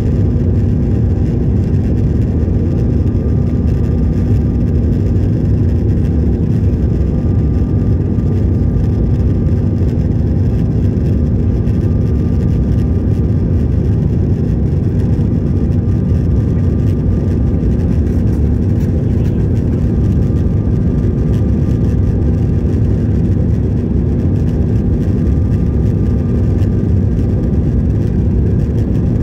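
Aircraft engines and airflow making a steady low drone with a constant hum in it.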